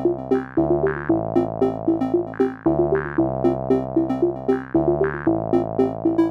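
Electronic outro music: a quick repeating synthesizer figure over held bass chords that change every couple of seconds.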